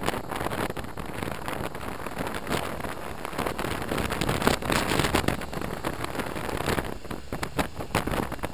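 Wind buffeting the microphone of a helmet-mounted camera on a BMW R1200RT motorcycle riding at speed, in uneven gusty rushes, with the bike's running noise mixed in underneath.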